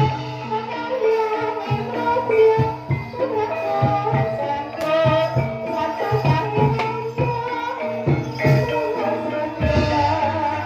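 Music for a barong troupe performance: drum strokes with rattling percussion over a melody of held, pitched notes.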